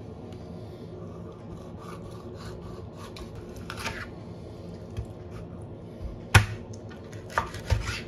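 Scraping and rubbing handling noises with a few sharp knocks, the loudest a little past six seconds in and two more near the end, over a steady low hum.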